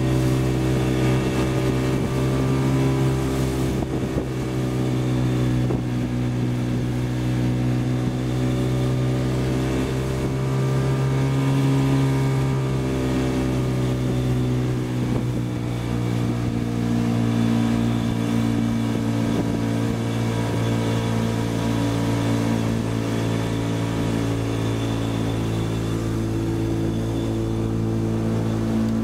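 An engine running steadily at a constant load, its pitch drifting slightly up and down.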